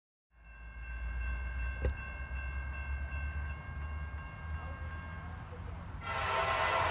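CSX freight locomotive horn sounding as the train approaches, with a low rumble underneath. The horn is faint at first and becomes much louder about six seconds in.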